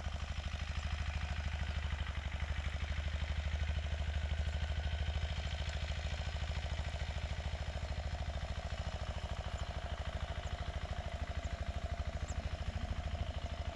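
Low, steady, rapidly pulsing hum of an engine or motor running.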